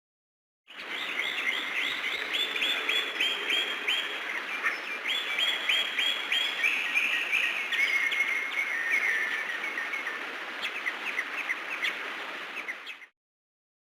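Birds chirping: rapid runs of short high chirps, many dropping in pitch, over a steady background hiss. The recording starts from silence under a second in and cuts off abruptly shortly before the end.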